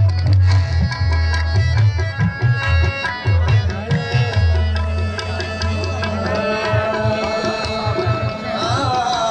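Music: a heavy, fast low drum pattern under a melody of pitched instruments.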